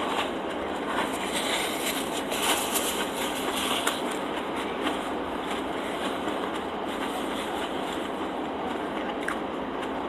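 Close-up chewing of a mouthful of roasted vegetable sandwich: soft, wet chewing with short crackly clicks, busiest in the first four seconds and sparser after, over a steady background hiss.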